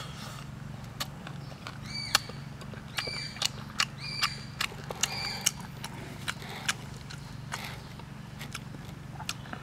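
Grilled sweet corn being bitten and chewed: irregular sharp clicks and crunches. A few short, high bird chirps come between about two and five seconds in, over a steady low hum.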